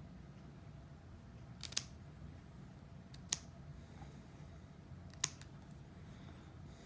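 Nail clippers snipping a cat's claws: three sharp clicks a second and a half to two seconds apart, the first one doubled.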